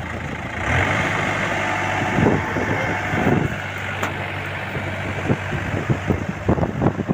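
Rice combine harvester's engine running steadily, with a higher-pitched rushing hiss joining about a second in; a run of short thumps comes in near the end.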